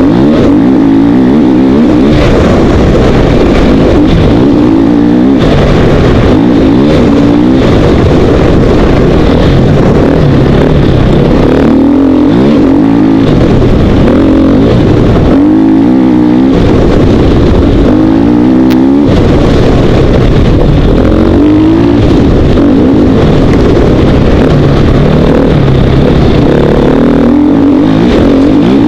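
2012 KTM 450 XC-W's single-cylinder four-stroke engine running hard, its pitch rising and falling over and over as the rider accelerates, shifts and backs off on a dirt trail. Loud throughout.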